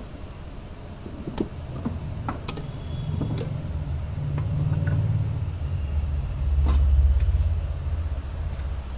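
A few light metal clicks and knocks as a replacement starter motor is worked into place by hand, over a low rumble that swells and fades, loudest about seven seconds in.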